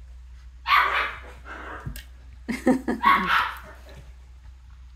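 Australian Shepherd puppy barking twice, about two seconds apart.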